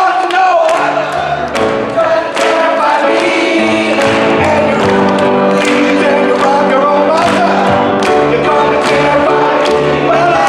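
Live song performance: a singer with band accompaniment over a steady beat.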